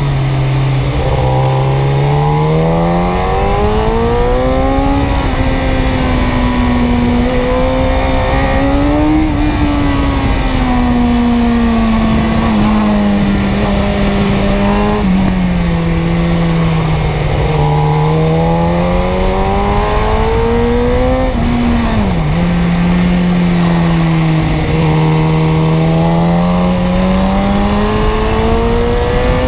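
Car engine running, its pitch climbing and sinking slowly over several seconds, as with changing speed or revs, with two sudden dips in pitch, one about halfway through and one about three quarters of the way in.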